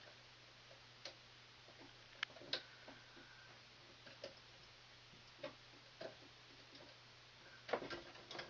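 Scattered light clicks and taps from handling wires and electrical parts at a switch box, a second or more apart, bunching into a quick cluster near the end, over a faint steady hum.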